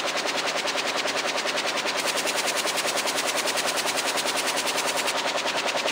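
Air-jet loom weaving denim at full speed: a rapid, even mechanical clatter, one beat per pick as each weft is inserted and beaten up.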